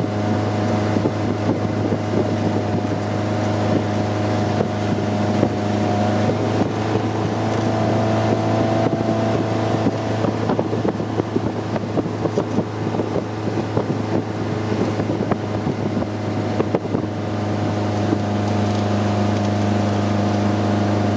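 Stingray 185LS ski boat's engine running steadily at towing speed, heard from the stern, with the rush of the wake and wind buffeting the microphone, most in the middle stretch.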